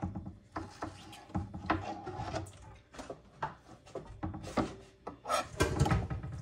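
Knife cutting meat on a cutting board: irregular taps of the blade on the board mixed with scraping strokes, busier near the end.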